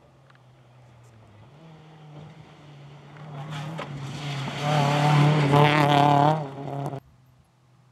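Rally car engine on a gravel stage, growing louder as the car approaches and passes close at speed, with the revs wavering at its loudest. The sound cuts off suddenly near the end.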